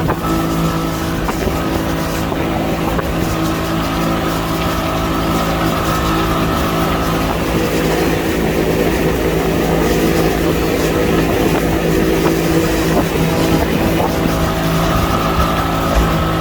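Motorboat engine running steadily under way, with a slight shift in engine pitch partway through.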